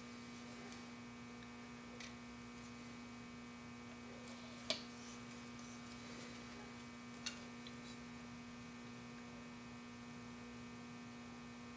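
Steady low electrical mains hum over quiet room tone. A few small clicks break it, the clearest about halfway through and a softer one a little later.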